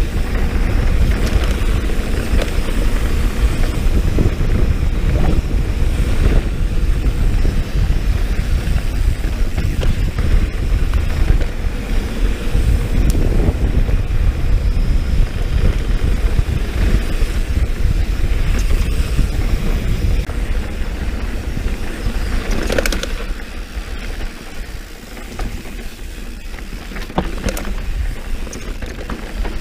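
Mountain bike riding fast down dirt singletrack: wind rushing over the action camera's microphone, with tyres crunching on dirt and the bike rattling. The rush eases a little over 20 seconds in, with a sharp clatter just before.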